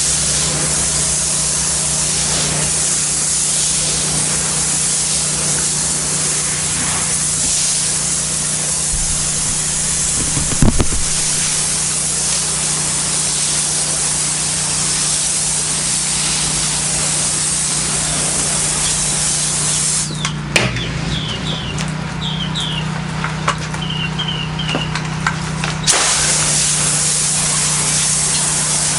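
Pressure washer spraying water through its low-pressure tip onto ceramic tile: a steady hiss over the constant hum of the machine's engine. The spray stops for about six seconds around two-thirds of the way through while the engine keeps running, then starts again.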